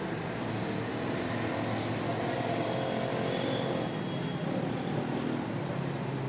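Steady vehicle engine noise, a continuous rumble with a faint low hum.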